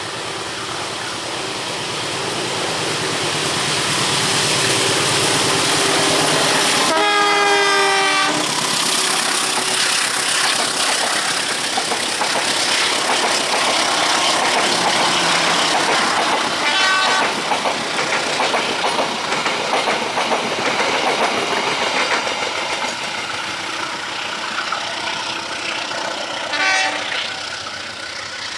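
A train passing at speed, the rumble and clatter of its wheels on the rails building over the first few seconds and staying loud. Its horn sounds for about a second and a half some seven seconds in, and twice more briefly later.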